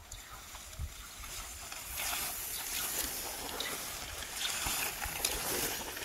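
Cross-country skis swishing over packed snow in a track, a hiss that grows louder about two seconds in, broken by a few sharp clicks.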